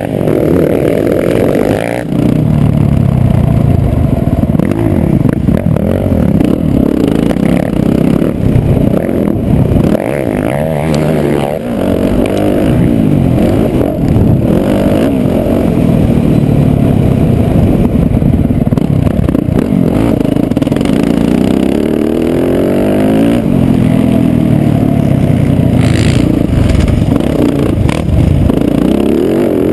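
Motocross dirt bike engine revving hard and dropping back again and again as the rider opens and shuts the throttle and shifts gears, heard up close from the bike itself.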